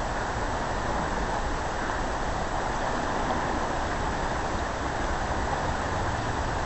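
Steady, even rush of the Clackamas River running high and fast at flood stage.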